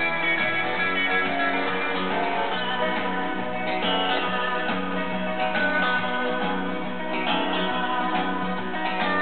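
Guitar music playing through a homemade stereo single-ended valve amplifier built with CV2799 transmitter valves and heard from its speakers.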